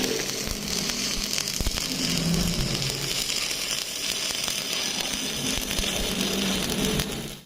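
Electric welding arc running with a steady crackling hiss, which cuts off abruptly near the end.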